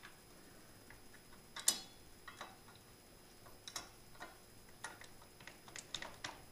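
Faint clicks and knocks of a steel Freestyle Ingenuity crash cage's pieces being fitted together by hand, with one louder knock a couple of seconds in and a run of small irregular ticks in the second half.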